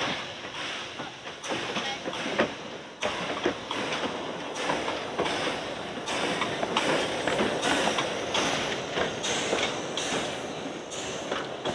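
Narrow-gauge steam train running by, with a rapid, irregular series of clicks and knocks over a steady rushing noise that grows a little louder.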